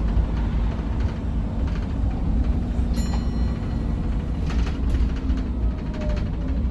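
Volvo B9TL double-decker bus under way, heard from the upper deck: a steady low rumble of its six-cylinder diesel and road noise, with a brief ringing clink about three seconds in and a few light rattles shortly after.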